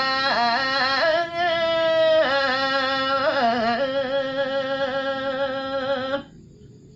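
A voice singing a Balinese geguritan in the Sinom metre: long held notes with wavering, bending ornaments. The line ends about six seconds in, followed by a pause.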